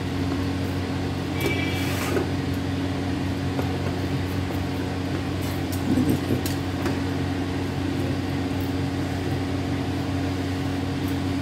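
Steady low mechanical hum throughout, with a few faint short scrapes and taps from a knife cutting a dried raw-mango candy sheet along the rim of a glass plate and peeling it free; the most marked of these comes about six seconds in.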